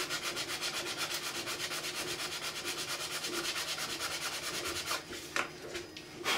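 Hand sanding of a 3D-printed ABS plastic mould: fast, even rubbing strokes over a welded repair, stopping about five seconds in, followed by a couple of brief brushing sounds.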